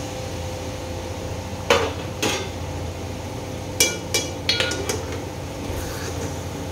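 Metal knocking and clinking on an aluminium cooking pot, from its steel lid and pot tongs: two knocks about two seconds in, then a quick run of five ringing metallic clinks around four to five seconds in, over a steady low hum.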